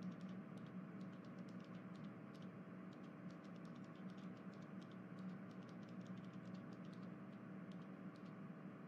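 Faint room tone: a steady low hum with many light, irregular clicks scattered throughout.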